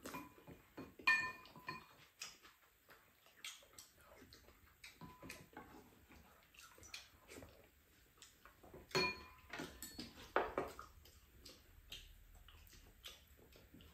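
Tableware clinking during a meal: chopsticks and spoons tapping against ceramic bowls and a frying pan, with scattered small clicks and two ringing clinks, about a second in and about nine seconds in.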